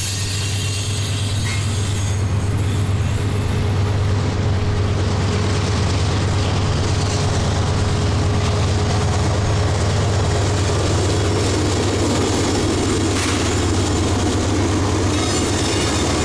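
Double-stack intermodal freight cars rolling past with a steady low rumble, while the Canadian Pacific GE ES44AC diesel locomotive working as rear distributed power runs in notch 8, full throttle. Its engine drone grows louder over the last few seconds as the locomotive comes alongside.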